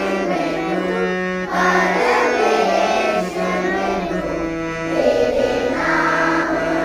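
A school music band performing a song: voices singing over instrumental accompaniment, with long held low notes underneath.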